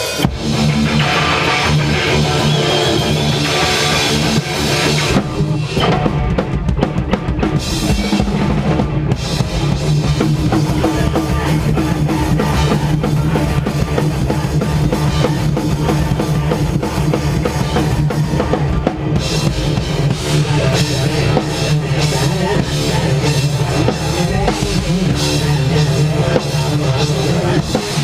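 Loud live rock band playing a heavy post-hardcore song, with pounding drum kit, bass drum and guitar.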